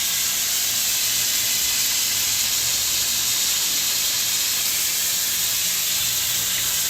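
Water spraying at full mains pressure out of a broken-off main shut-off valve on a 1-inch copper supply line: a loud, steady hiss. The valve cannot be closed, so the flow is unchecked.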